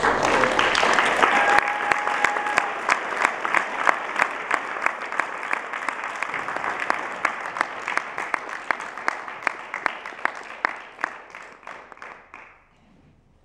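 Audience applauding: a dense round of clapping that thins to a few separate, evenly spaced claps and fades out near the end.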